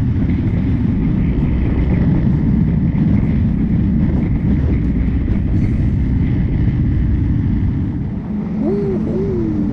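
Steady low wind rumble on the microphone, with the engine and road noise of a Honda Winner V1 motorcycle riding at road speed. Near the end come two short tones that rise and fall.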